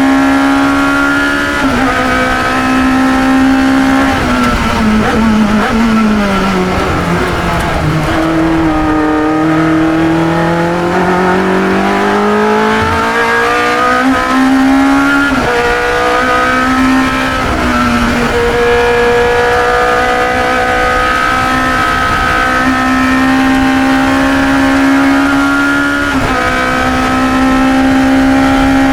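1972 Chevron B21 sports racer's engine running hard at high revs, heard onboard. Its pitch falls steadily from about four seconds in as the car slows, then climbs back up with sharp steps at the gear changes.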